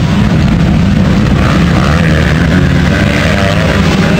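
A pack of 450-class motocross dirt bikes racing past together, their engines revving in a loud, continuous blend, pitches rising and falling as riders work the throttle.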